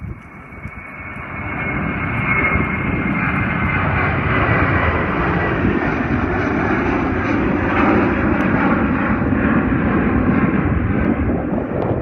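Jet engines of a FedEx Boeing 767-300 at takeoff power: the noise builds over the first couple of seconds, then holds loud and steady. A high whine sounds for the first few seconds and fades.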